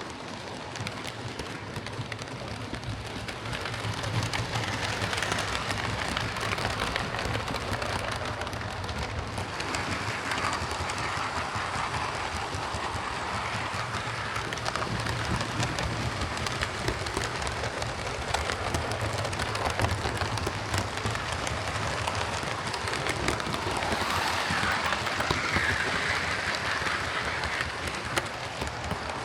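Hornby King Class OO gauge model locomotive running on track under DC power: a steady buzz of motor and gears with a fine crackle of wheels on rail, swelling louder a few times as it comes nearer. Freshly serviced, it runs smoothly, with some gear noise.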